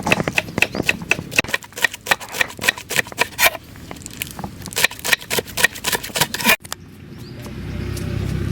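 Knife chopping green chillies finely on a board: quick, sharp chops at about four a second. The chopping cuts off suddenly about six and a half seconds in, and a steady low rumble follows.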